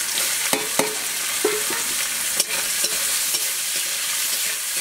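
Chopped onion sizzling in hot mustard oil and ghee in a metal karahi, a steady loud hiss, while a long steel spatula stirs it. The spatula scrapes and clicks against the pan several times in the first couple of seconds.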